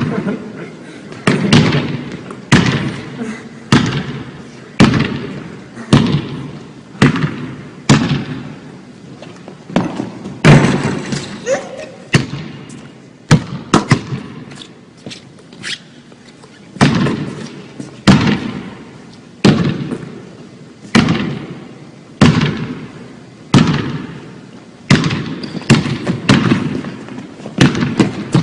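Basketball bouncing on a hardwood gym floor, a sharp echoing bounce about once a second, with a busier stretch of mixed sounds a little before the middle.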